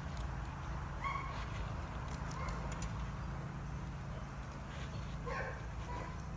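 Rottweiler giving a few short vocal sounds while tugging on a rope toy, one about a second in and a cluster near the end, over a steady low rumble.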